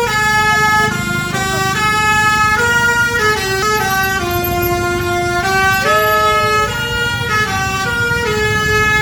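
Basuri telolet horn, a multi-tone musical vehicle horn, playing a tune of held notes that step up and down in pitch, over a low rumble; the tune cuts off suddenly near the end.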